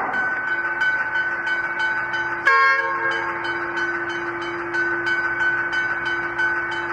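Diesel freight locomotive's horn giving one short blast about two and a half seconds in, over a steady ringing that repeats at about four strikes a second.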